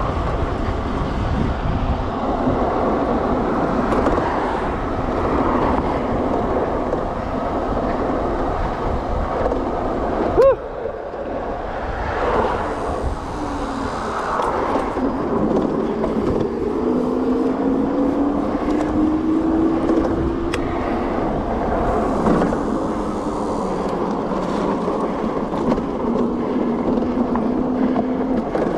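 Wind buffeting the microphone and tyre noise from a Juiced Scrambler electric bike ridden at speed. In the second half a faint motor whine rises in pitch as the bike speeds up. A brief sharp knock comes about ten seconds in.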